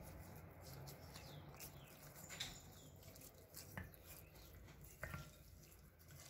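Faint wet handling sounds of hands rubbing a spice paste into a raw whole chicken on a plate, with three soft clicks.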